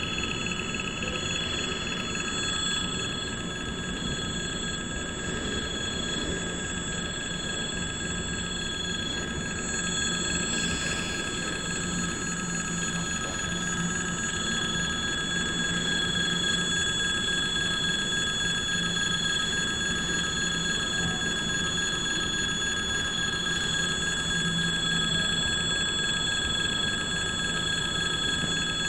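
Electric warning bell of a railway level crossing ringing continuously, over the low rumble of freight wagons rolling past.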